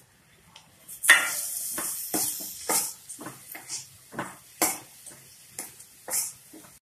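A steel ladle stirring and scraping garlic cloves frying in oil and sambar powder in a stainless steel kadai, with the masala sizzling. After about a second of quiet come scrapes and knocks about twice a second; the first is the loudest.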